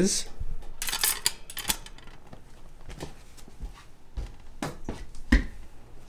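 Stainless-steel seed bowl clinking and clattering against the wire bars of a bird cage as it is handled and set in its holder. There is a quick run of sharp clinks in the first two seconds, then a few scattered knocks.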